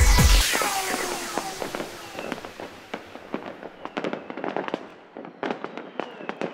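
Electronic music with a heavy beat stops about half a second in, under a falling whistling sweep. Then come scattered sharp pops and crackles of fireworks bursting at irregular intervals.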